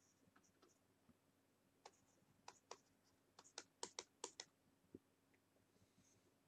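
Faint, sharp clicks from drawing strokes on a computer, about a dozen over a few seconds and bunched near the middle, with near silence between them.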